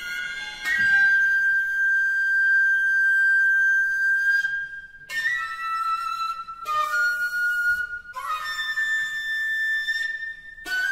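Shakuhachi playing long, high held notes in phrases of a few seconds, separated by brief pauses for breath, with a second softer pitch sometimes sounding alongside it.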